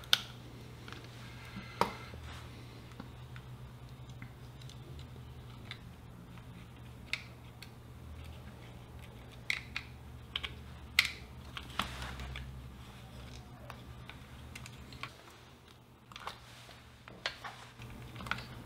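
Handling clicks and taps as the small plastic case, chassis and parts of a pocket transistor radio are fitted back together: scattered light clicks, one of the sharpest near the start, over a low steady hum that fades out near the end.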